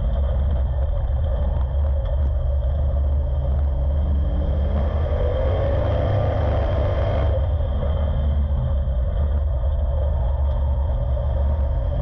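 WISSOTA Street Stock race car's V8 engine at racing speed, heard from inside the cockpit as a heavy, steady low rumble. The engine note swells, then drops off sharply about seven seconds in as the car slows into a corner.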